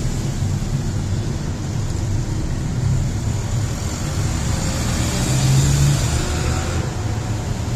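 Steady low rumble of motor-vehicle noise, with no single knock or click standing out.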